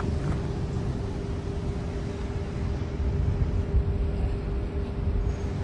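Steady low outdoor rumble with a constant mid-pitched hum running through it, like a street with vehicles or machinery running.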